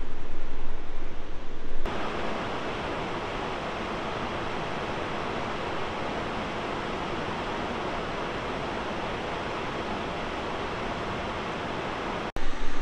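River water rushing over rocky falls and rapids in a gorge, a steady noise of moving water. It is louder and more uneven for about the first two seconds, then changes abruptly to a steadier, quieter rush.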